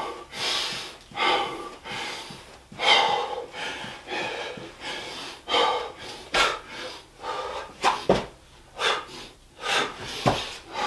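A man breathing hard and heavily between burpees, a loud breath about every second, winded from the exercise. A few sharp thuds of hands and feet hitting the floor come in the second half as he drops down into the burpee.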